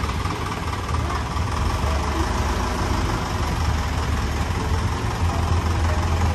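Light cargo truck's diesel engine running steadily at low revs, a constant low hum.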